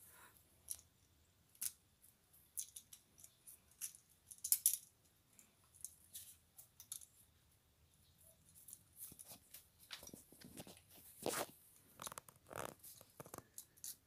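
Scattered clicks, scrapes and rustles of a duplex electrical outlet and its wires being pushed back into the wall box by hand, busiest in the second half.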